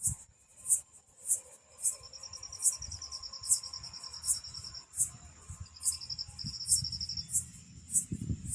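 Insects chirping: a short high chirp repeating about every half second over a steady high buzz, with a faster trill joining for a few seconds in the middle.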